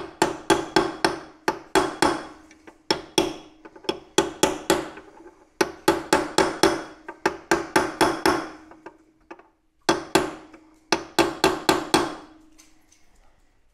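Light, quick hammer taps seating a tapered roller bearing race in a Honda CT70's head tube, in runs of several taps at about three to four a second with short pauses between. A steady ringing tone hangs under the taps. The race is closing its last small gap to sit fully against the lip inside the head tube.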